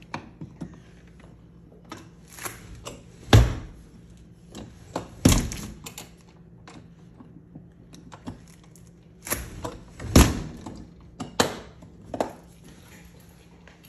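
About half a dozen irregular thumps and knocks, the loudest about three seconds in and about ten seconds in, over a faint steady hum.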